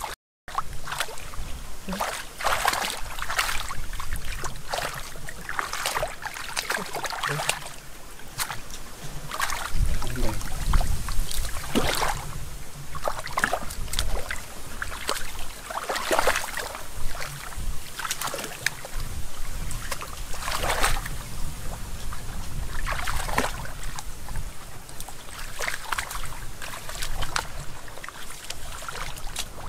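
Hands splashing and sloshing irregularly through shallow muddy water while feeling for catfish, with wind rumbling on the microphone.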